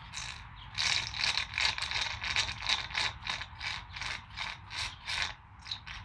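Small hand-operated pump worked in quick, even strokes, about three a second, drawing old, dirty DOT 4 fluid out of a motorcycle's clutch master cylinder reservoir.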